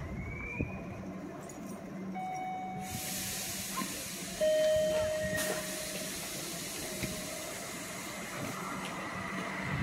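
Electric train at a station platform: a steady rushing hiss sets in about three seconds in and grows louder a second later, with brief whining tones over a low hum. A high squeal begins near the end as a train comes through.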